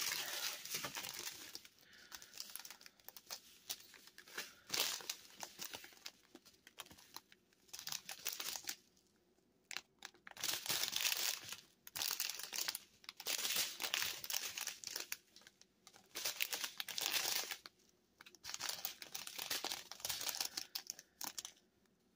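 Strips of small plastic bags of diamond painting resin drills crinkling as they are handled, in irregular bursts with short pauses between.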